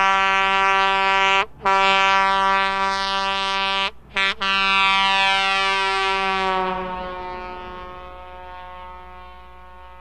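Air horn of a 1955 Peterbilt 281 tanker truck sounding in long held blasts, broken briefly about a second and a half in and twice around four seconds in. From about six and a half seconds the tone sags lower in pitch and fades away.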